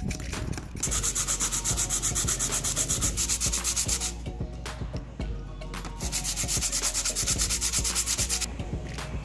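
A short bamboo handle rubbed quickly back and forth by hand on a sheet of sandpaper, smoothing its surface: a fast, rhythmic scratchy sanding. It starts about a second in, pauses for about two seconds midway, resumes, and stops shortly before the end.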